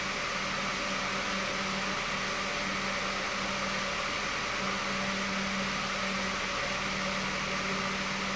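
Steady electric fan hum with an even hiss and a constant low tone, unchanging throughout.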